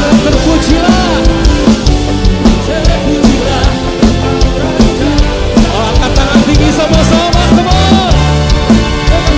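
Full band playing an upbeat rock-style worship song, a drum kit keeping a steady driving beat under guitars and melody lines.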